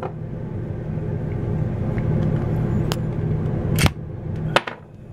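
Three sharp clicks and knocks of hands handling the plastic valve assembly and tools in the second half, over a steady low hum.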